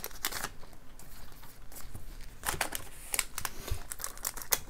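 Foil wrapper of a Japanese Pokémon card booster pack crinkling and tearing as it is pulled open by hand, in a series of short crackles.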